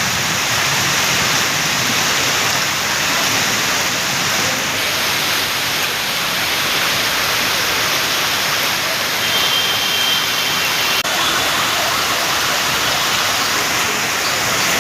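Heavy rain pouring down, a loud steady rush of water.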